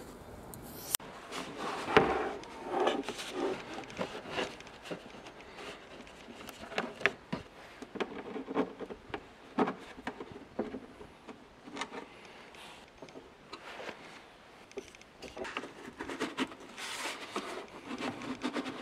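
Hand-work noises: scissors cutting through foam, then scraping and rubbing on a plastic canister, with scattered knocks and clicks throughout.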